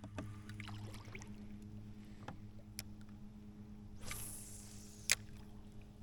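Small boat's motor humming steadily and low, with small clicks and knocks of fishing gear in the boat. A short hiss comes about four seconds in, and a sharp click just after five seconds.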